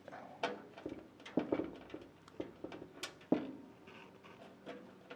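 Small metal motherboard screws and a screwdriver being handled against the motherboard and case: a series of irregular light clicks and taps, two of them louder, about a second and a half in and just past three seconds in.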